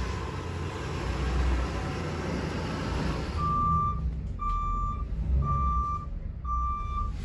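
GMC short school bus with its engine running as it backs up; about three seconds in its reversing alarm starts, sounding four evenly spaced beeps, roughly one a second.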